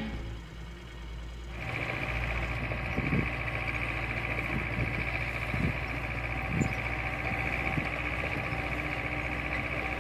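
Tractor engine running steadily, heard from inside the cab, with a steady high-pitched whine that comes in about one and a half seconds in and a few light knocks.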